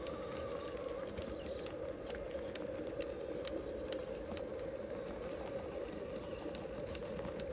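RC rock-crawler trucks driving over rock and dirt: a steady motor hum with many small irregular clicks and crunches from the tyres on stones.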